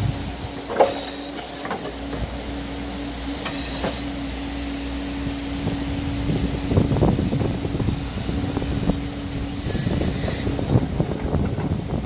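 Doosan DX140W wheeled excavator working: the diesel engine runs under load with a steady hum that drops out about ten seconds in, while the bucket scrapes and knocks through soil and stones, busiest in the second half. A sharp knock comes a little under a second in.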